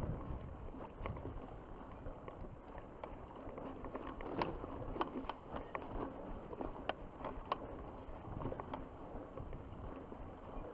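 Mountain bike rolling over a bumpy grass trail: scattered sharp clicks and rattles from the bike, thickest from about four to eight seconds in, over a low rumble of tyre and wind noise.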